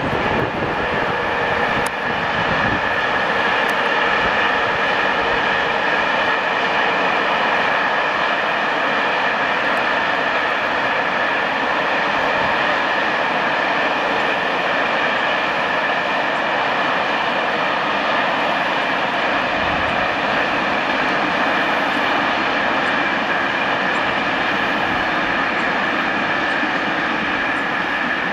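Freight train hauled by SNCF electric locomotive BB 7345 rolling past, its wheels and wagons making a steady rolling rush with a steady high whine over it.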